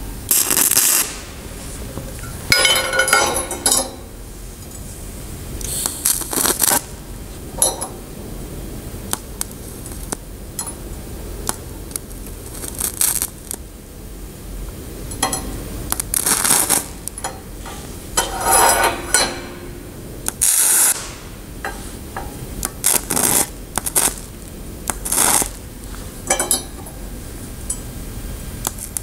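TIG welding arc on a steel-to-brass tube joint as filler rod is fed in, crackling and spitting in irregular bursts over a steady hiss. It sounds quite unlike TIG welding on plain steel, a sign of the brass boiling and fuming under the arc.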